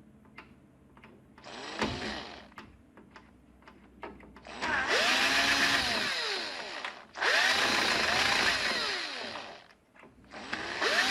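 Cordless electric screwdriver or drill running in repeated bursts while backing out the screws that hold a TV power supply board to its chassis. A short run about two seconds in, then three longer runs, each winding up in pitch and then down, with small clicks between.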